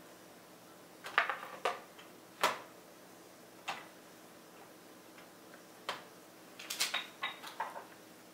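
A spoon clinking and scraping against a glass jar and the mixing bowl while salted caramel is spooned out: a few separate sharp knocks, then a quick run of clicks near the end.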